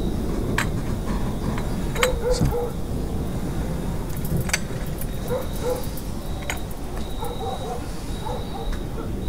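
Dogs barking in the distance in short pairs over a steady low rumble, with a few sharp clinks of glass as tea glasses are set down.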